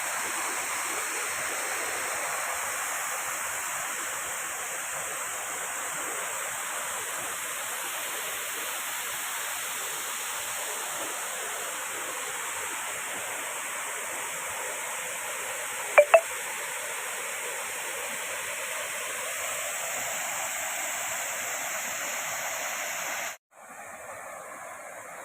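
Waterfall rushing steadily, with two sharp clicks in quick succession about two-thirds of the way through. Near the end the sound cuts out abruptly and returns as a quieter rush.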